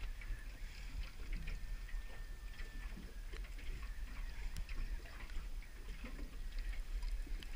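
Low steady rumble of wind and sea around a small drifting boat, with faint scattered ticks and, a little way in, a faint thin steady tone lasting about a second and a half.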